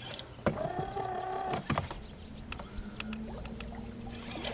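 Lew's Mach 1 baitcasting reel cranked hard to bring in a hooked bass: a whir that holds for about a second, then a lower, steady whir over the last second and a half, with a few knocks.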